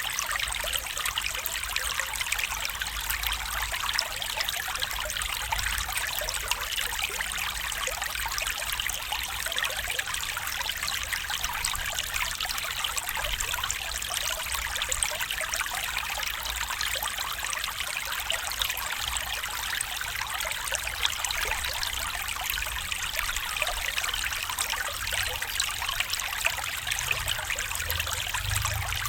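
Small stream flowing and trickling over stones, a steady babble of running water.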